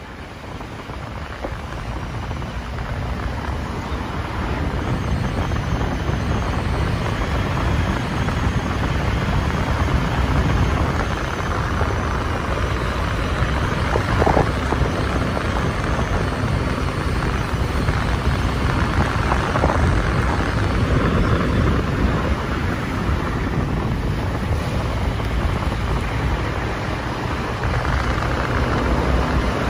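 Vehicle on the move up a hill road: steady engine and road rumble with wind on the microphone, growing louder over the first several seconds and then holding steady.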